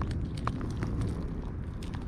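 A cat eating dry kibble from a metal dish: a few scattered crisp crunches over a low rumble.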